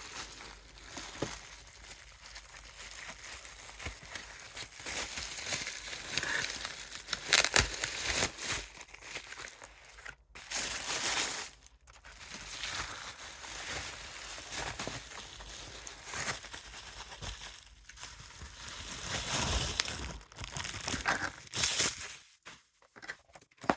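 Paper and plastic packaging crinkling and rustling as it is handled and unwrapped, with louder crackling flare-ups now and then.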